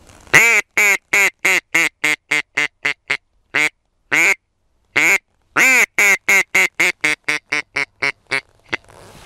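Loud duck quacks in the pattern of a mallard hen's descending call: a run of about a dozen quacks that come faster and shorter, a few spaced single quacks, then a second run that fades out near the end, with dead silence between the notes.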